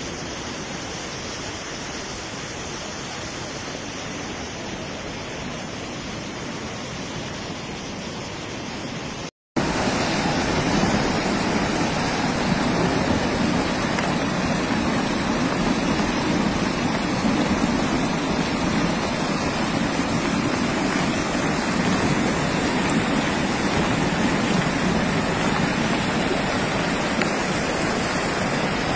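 Muddy floodwater of a wadi in spate rushing steadily, a continuous noise of fast-flowing water. About nine seconds in the sound cuts out for a moment and comes back louder and fuller.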